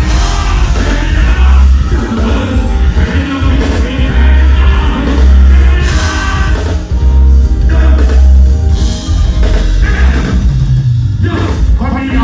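Live band music with a vocalist singing into a microphone on stage, loud and heavy in the bass, drum kit and keyboards in the band.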